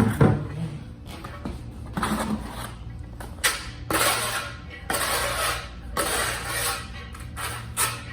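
Steel trowel scraping thin-set mortar across the backs of tiles in a series of short strokes, each under a second, as the tiles are back-buttered; a knock right at the start.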